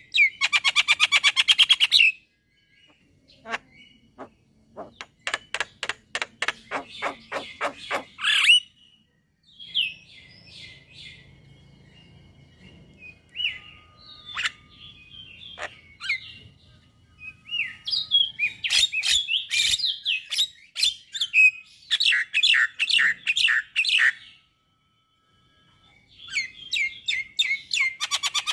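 Male Javan myna (jalak kebo) singing in bursts of rapid, harsh chattering notes, with pauses between the bursts and a short silence a little before the end.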